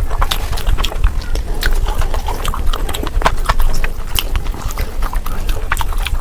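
Close-miked eating: chewing and lip-smacking, a stream of quick, irregular wet mouth clicks over a steady low rumble.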